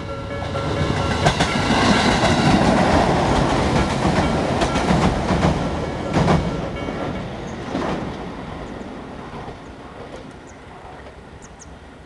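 Tobu 850-series electric train running over the level crossing, its wheels clicking over the rail joints and fading away as it leaves. The crossing's warning bell rings under it and stops about seven seconds in.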